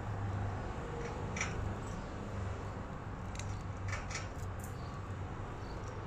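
A few brief, scattered high chirps and clicks from pet budgerigars in their cage, over a steady low hum.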